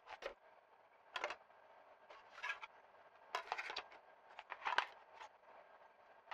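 Small, sharp plastic clicks and rattles, about half a dozen at uneven intervals: a portable CD player and a CD jewel case being handled and opened.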